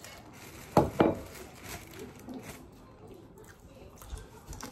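Eating and tableware handling at a meal of boiled shrimp: two sharp knocks close together about a second in, then quieter scattered clicks and rustles.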